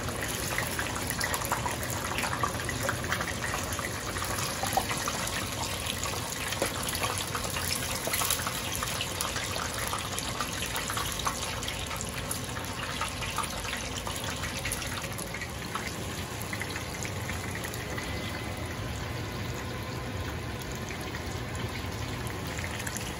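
Hot oil sizzling and crackling steadily as shrimp tempura deep-fries in a small saucepan.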